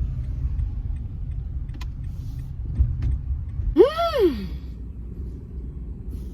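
Low, steady rumble of a car interior. About four seconds in, a short voiced sound rises and then falls in pitch, like a brief sung 'ooh'.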